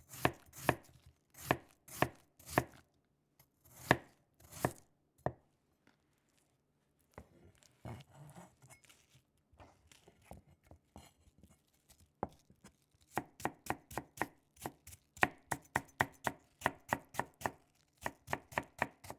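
Sharp knocks in irregular groups, then a softer, quieter clatter, and then a fast, even run of knocks, about three or four a second, through the last several seconds.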